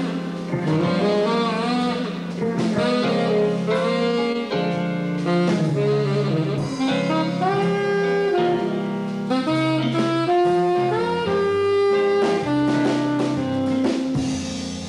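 Live jazz: a saxophone plays a melodic solo line of held and moving notes over a stepping bass line and a drum kit with cymbals.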